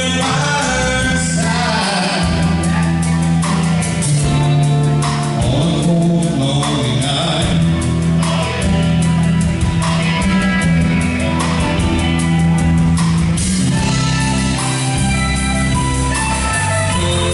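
Live country band: a male lead singer over guitars, bass guitar and a drum kit keeping a steady beat.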